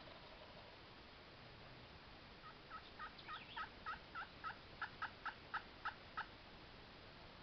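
Wild turkey yelping: a run of about a dozen short, evenly spaced yelps, about three to four a second, starting a couple of seconds in and growing louder before stopping near the end. A small bird chirps faintly in the background.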